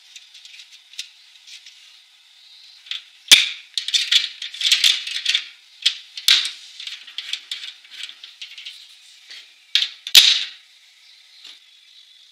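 Light clicks and metallic rattling from hands working the wire feed mechanism of an IPOTOOLS MIG-185 Synergic welder, its drive-roll pressure arm and tension knob. There is a sharp snap about three seconds in and another about ten seconds in, with a quick run of clicking between them.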